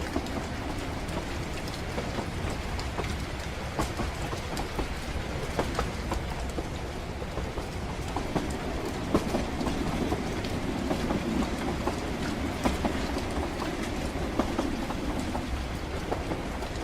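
Steady rumble of a train rolling along the rails, heard as a continuous low running noise with scattered light ticks and clicks. The rumble swells a little about halfway through, then settles back.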